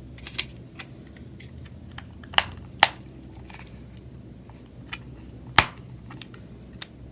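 Small plastic clicks and taps as the housing of a wireless doorbell push button is handled and snapped back together, with three sharper clicks: two close together a couple of seconds in and one more later.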